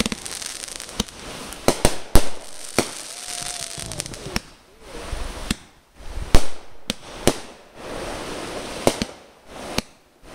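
Aerial fireworks going off: a dozen or more sharp bangs at uneven intervals, with crackling and fizzing from the glittering stars between them.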